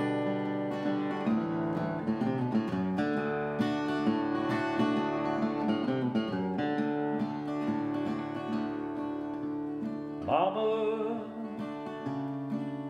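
Solo acoustic guitar playing an instrumental break, strummed and picked steadily. A man's singing voice comes back in about ten seconds in.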